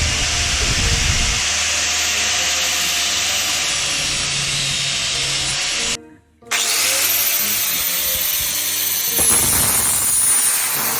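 An angle grinder cuts into a die-cast Hot Wheels car with a loud, steady high whine and grinding hiss. It drops out abruptly for about half a second around six seconds in, then starts again, grinding harder near the end.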